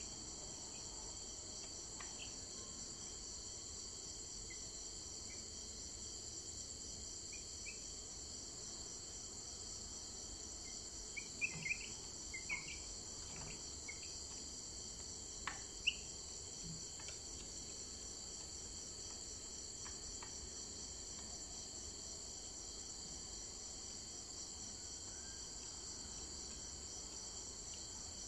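Steady high-pitched insect chorus, a continuous finely pulsing trill, with a few short chirps and a couple of sharp clicks near the middle.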